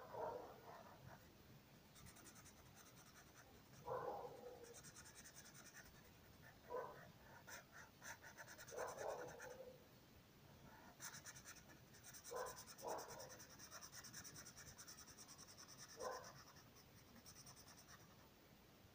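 Felt-tip marker rubbing rapidly back and forth on paper as a shape is coloured in, a fast scratchy rasp in stretches of several seconds. Several brief, louder background sounds come a few seconds apart.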